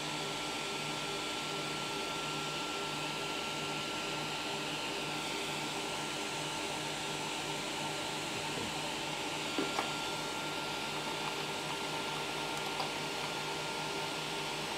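Steady background hum and hiss with a faint constant whine, broken by two small clicks just under ten seconds in and a fainter one a few seconds later, from handling a small RC receiver and its plugged-in lead.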